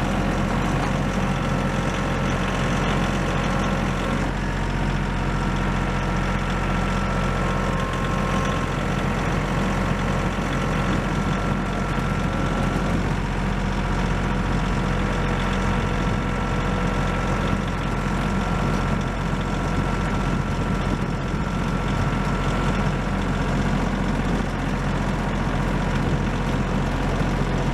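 Kioti compact tractor's diesel engine running steadily while the tractor works its way down a steep, snowy hill. A faint high whine sits over the engine for several seconds in the middle.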